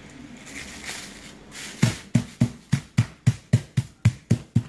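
Crinkling plastic film, then a metal meat mallet pounding boneless chicken breast through plastic wrap on a plastic cutting board. From about two seconds in it strikes in a quick, even rhythm of about four dull thumps a second.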